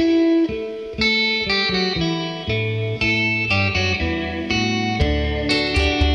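Background music led by plucked guitar notes, with a heavier bass part coming in about five seconds in.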